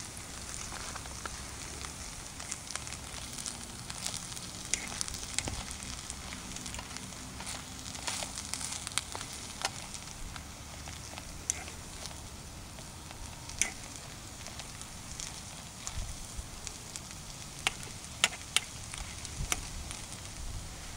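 Hash browns frying in bacon grease in a metal pot, a steady sizzle, with scattered sharp clicks of a fork stirring against the pot.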